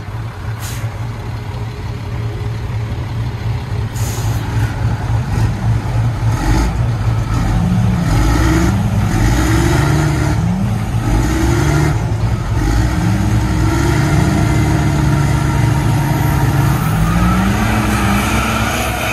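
Diesel truck engines straining against each other in a truck tug-of-war: a deep steady engine drone under repeated revs that rise and fall several times, then a long held high rev that climbs near the end. A few sharp knocks sound in the first several seconds.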